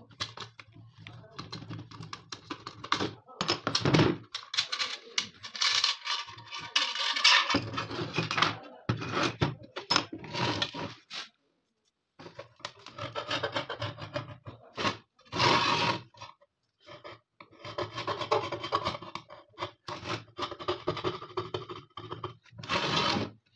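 Hand tools scraping and clicking on a steel AKM magazine as it is taken apart: pliers working at its base, then a screwdriver tip scratching along the magazine body. The sound comes in irregular bursts, with a brief silent gap about halfway.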